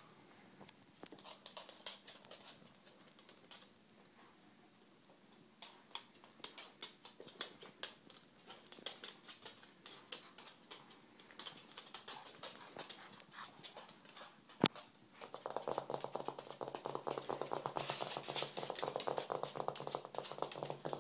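Dogs' and puppy's claws clicking and pattering on a hard wooden floor as they play. There is a single sharp knock about two-thirds of the way through, then a louder, busier run of rapid scrabbling over the last few seconds.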